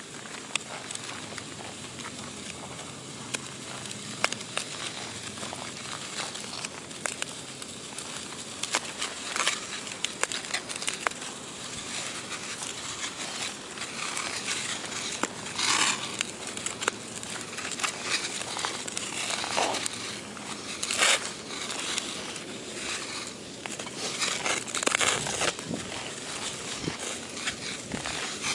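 Bauer hockey skate blades scraping and gliding on outdoor rink ice: a steady hiss full of small clicks, with short louder scrapes coming more often in the second half.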